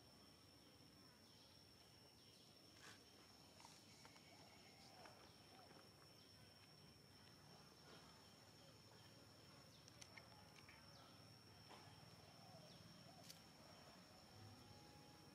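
Near silence: faint outdoor ambience with a thin, steady high tone and a few scattered faint ticks.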